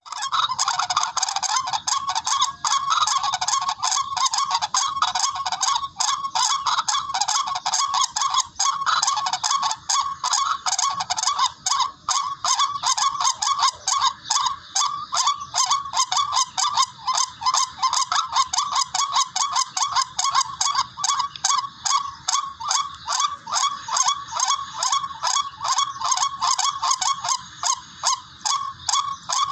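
Recorded call of a rail (tikling): a continuous run of harsh, honking repeated notes, settling into about three or four a second, the kind of call played back as a hunting lure.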